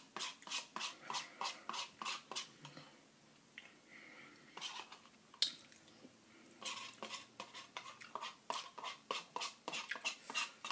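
A spoon scraping and stirring inside a paper cup of chili, in quick repeated strokes, quieter for a few seconds around the middle. It is scooping up the last of the chili from the bottom of the cup.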